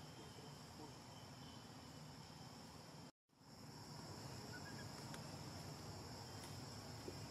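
Faint, steady high-pitched drone of insects in forest ambience. The sound cuts out completely for a moment about three seconds in, at an edit, then resumes.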